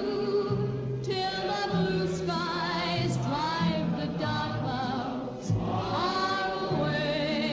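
Music with a choir singing: several voices holding long notes with vibrato, some sliding up, over a bass line that steps from note to note.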